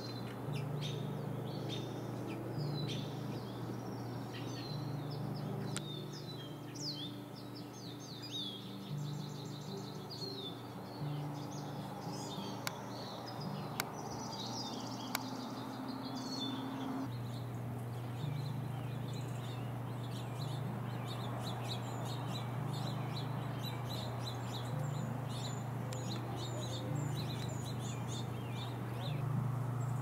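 Wild birds chirping and trilling in many short, high notes, over a steady low hum. There are three sharp ticks about halfway through.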